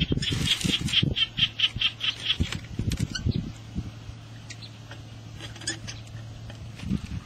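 A bird giving a rapid series of short squawking calls, about five a second, for the first two and a half seconds. Under it are thumps and rustling from hands working in grass and soil while an eel is pulled from its burrow.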